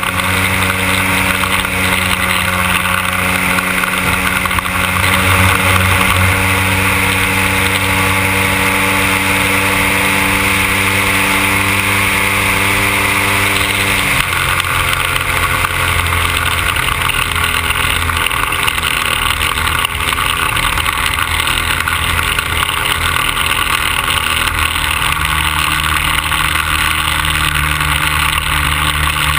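100cc gasoline engine of a radio-controlled Cessna Skylane 182 model running steadily, its note changing abruptly about halfway through.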